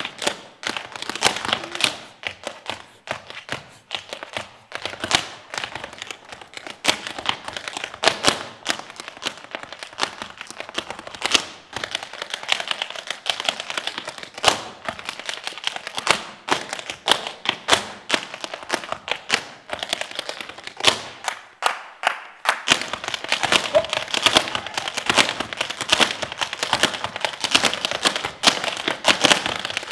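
Tap shoes striking the stage floor in fast, rhythmic a cappella tap dancing: rapid sharp clicks and heavier stamps. After a short pause about three-quarters of the way through, the taps come denser and louder as two dancers tap together.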